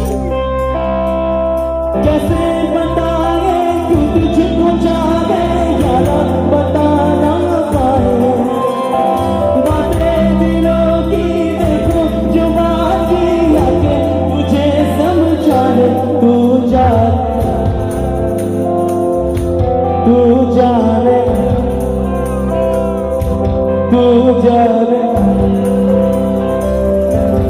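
Live Assamese song performed by a male singer with a band of keyboard and guitar, loud through the PA speakers and heard from the crowd.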